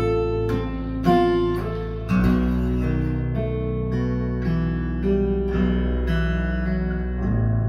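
Acoustic guitar music with plucked and strummed notes over a deep, steady bass line, played back through KEF LS60 Wireless speakers as a sound test.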